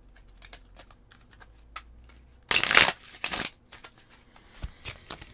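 A deck of tarot cards being shuffled by hand: light card clicks and slides, with a louder rush of cards for about a second halfway through.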